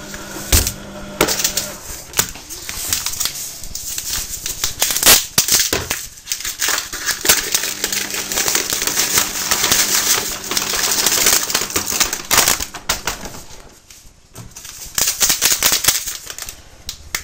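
Paper and plastic packaging crackling and rustling, with small sharp clicks, as a pack of seed and grain bread flour is opened and tipped into a plastic mixing bowl.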